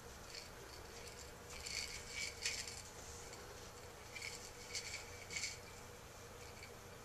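Faint, brief metallic jingles, about half a dozen, from a small dog's collar tags as it tugs and shakes a plush toy, over a steady low hum.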